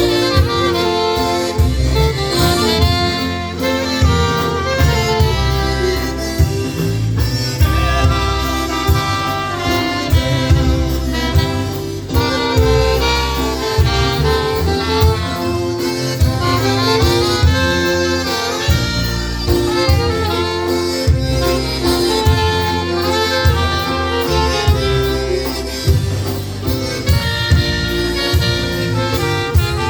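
Polka band playing an instrumental break of a waltz, with melody instruments over a steady bass-and-drum beat.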